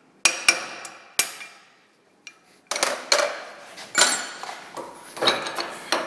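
Hammer blows on a copper punch against bent sheet metal clamped in a bench vise: three sharp ringing strikes in the first second or so. After a short pause comes a run of lighter metallic clattering and rubbing as the parts are handled.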